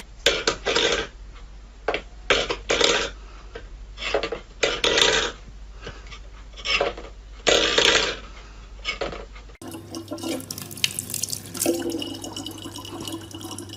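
Stainless-steel food bowl pushed and knocked about on a wooden floor by a cat's paw: repeated short, irregular scraping clatters. After a cut, a thin stream of tap water runs into a plastic bottle with a steady trickle and a low hum.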